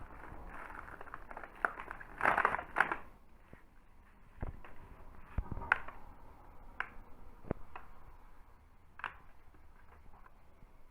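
Close crackling and crunching of snacks being handled and eaten, loudest in a burst about two seconds in, then scattered sharp clicks and taps.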